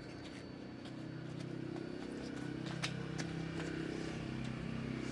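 A motor or engine running steadily, growing slowly louder, with a few faint clicks over it.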